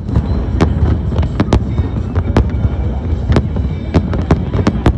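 Fireworks display: a continuous low rumble of bursting shells with many sharp, irregular bangs, about three a second.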